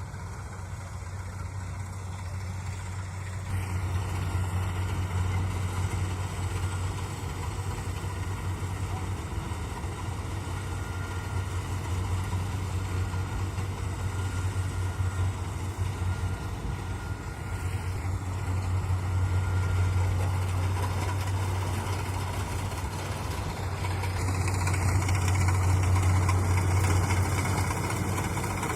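Kubota combine harvester running, a steady low engine drone with machinery noise over it, growing louder about four seconds in and swelling twice more later.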